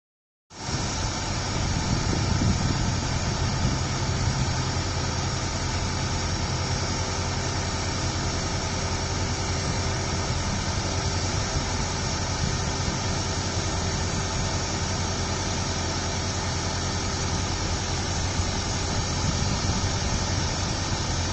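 Excavator's diesel engine running steadily, with a hiss above the engine note; it cuts in abruptly about half a second in.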